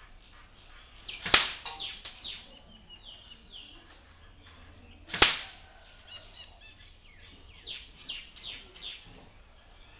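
Two sharp single cracks about four seconds apart, as a Dboy BY-805T SCAR-H airsoft electric rifle is test-fired one shot at a time at a paper target. Small birds chirp between the shots.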